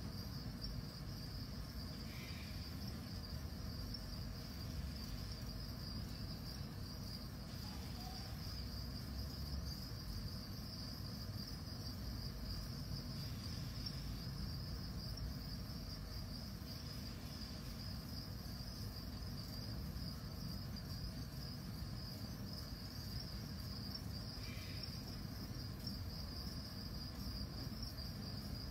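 Continuous high-pitched insect trill, steady throughout, over a low rumble.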